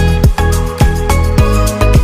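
Background music with a steady beat of deep drum hits that fall in pitch, about two a second, over sustained bass notes.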